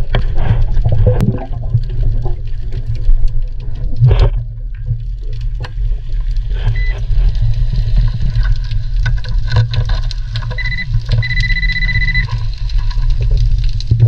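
Underwater rumble of water moving against the camera, with scattered clicks and knocks, while an underwater metal detector sounds a steady high beep: briefly about seven seconds in, then twice near the end, the last lasting about a second, signalling a metal target.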